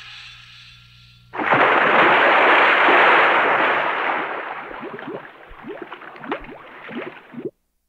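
A person diving into a swimming pool: a sudden loud splash about a second in, then a rush of water that fades into bubbling, cutting off abruptly near the end.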